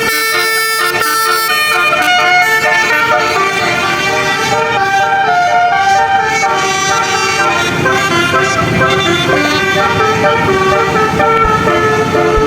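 Bus's 'telolet basuri' musical air horn playing a tune: several horn tones at once, stepping from note to note in quick succession.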